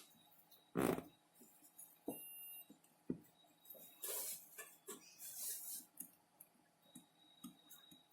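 Faint, scattered clicks, taps and knocks of small tools and parts being handled on a repair bench, with a louder knock about a second in and two short hissing scrapes around four and five seconds in.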